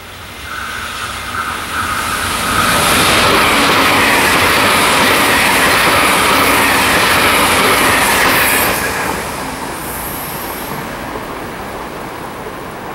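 Series 383 limited express electric train passing at speed: a high steady whine as it approaches, then a loud rush of wheel and rail noise for about six seconds with the pitch falling as it goes by, cutting off sharply as the last car passes and fading away.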